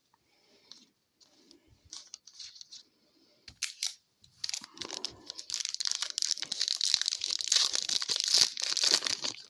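A few soft handling clicks, then a long stretch of crackling and tearing from about halfway in: a hockey card pack's wrapper being torn open and crinkled.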